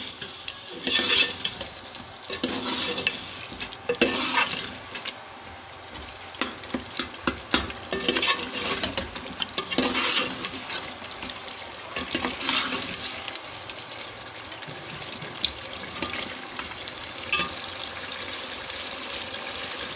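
Steel ladle stirring and scraping chicken in thick masala around a metal pot, over a steady sizzle of frying (bhuna). The scrapes and knocks come fast and irregular at first and thin out after about 13 seconds, leaving mostly the sizzle.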